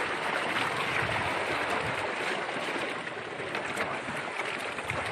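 Steady splashing and sloshing of sea water, with the rustle of a wet fishing net being hauled and sorted by hand.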